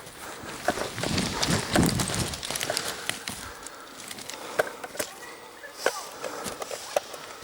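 Rustling movement and footsteps, louder about a second in, with scattered sharp clicks and snaps throughout.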